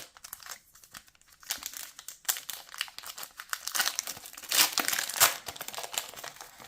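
Foil wrapper of a hockey card pack being torn open and crinkled by hand, a run of crackling that is loudest about four to five seconds in.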